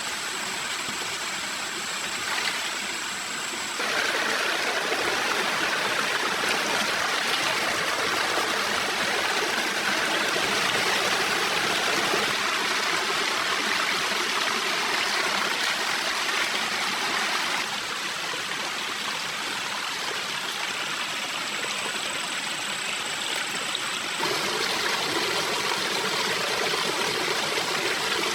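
Rushing water of a forest stream: a steady, noisy rush that grows louder about four seconds in and shifts in level twice more later on.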